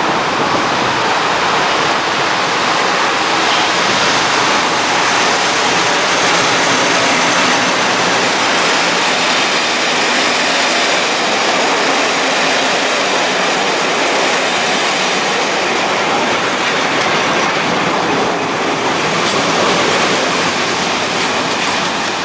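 A train running past close by: a loud, steady rush of wheel and rail noise that holds throughout.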